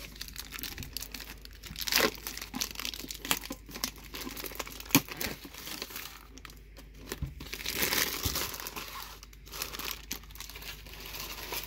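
Plastic shrink wrap crinkling and tearing as it is pulled off a collector's chest tin, in irregular spells with many small crackles and a sharp click about five seconds in.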